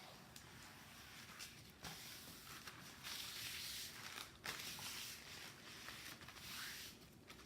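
Faint rustling and handling of a diamond-painting canvas as it is flipped over and smoothed flat by hand, with a couple of light clicks.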